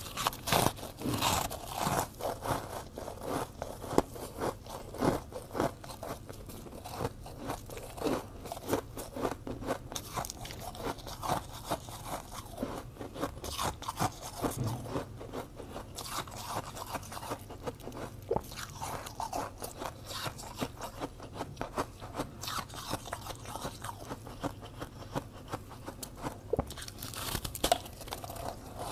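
Close-up biting and chewing of fluffy blue frost-ice: many crisp crunches in quick succession.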